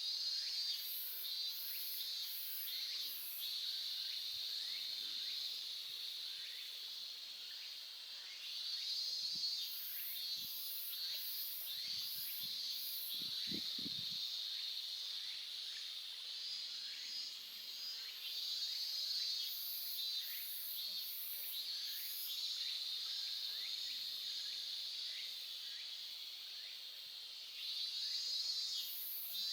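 Insects trilling steadily at a high pitch, with groups of about four even higher chirps recurring every several seconds, over a faint murmur of a stream. A few soft low knocks come about halfway through.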